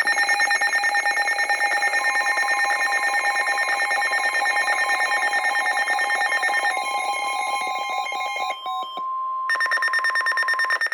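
Emergency Alert System alert tones: a loud, rapidly pulsing electronic alarm made of several pitches at once, joined about two seconds in by a steady single-pitch tone. The pulsing drops out briefly near nine seconds, then resumes and cuts off suddenly at the end.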